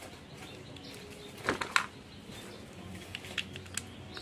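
Small plastic clicks and snaps as the Iron Spider figure's yellow spider legs are pushed into the sockets on its back, the two sharpest close together about a second and a half in, then a few lighter ticks.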